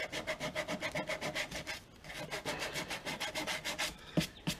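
Emery cloth rubbed by hand over a plastic snowblower gas tank, sanding around a cut slit in quick back-and-forth strokes, about seven a second. It is roughing up the plastic so super glue will stick. The strokes break off briefly about two seconds in and stop near the end, followed by a couple of light knocks.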